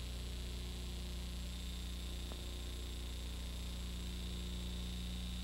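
Steady low electrical mains hum with its overtones, and a faint thin high whine that comes in about one and a half seconds in.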